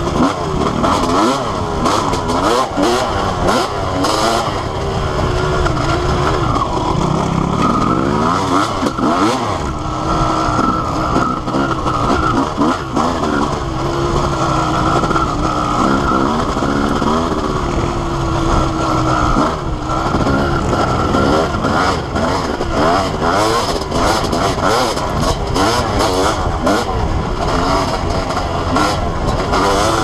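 Honda CR250R two-stroke single-cylinder dirt bike engine, heard up close from the bike while it is ridden, revving up and down constantly with the pitch rising and falling as the throttle is worked.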